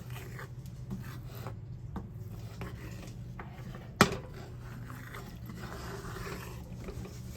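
A cooking utensil scraping and stirring thick besan lapsi in a pan, with one sharp knock against the pan about four seconds in. A low steady hum runs underneath.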